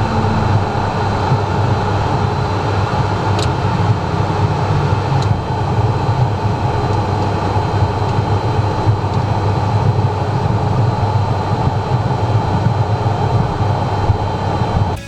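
Cockpit noise in a Cessna Citation M2 with its twin turbofan engines running on the ground: a steady, even rumble with a faint high whine over it.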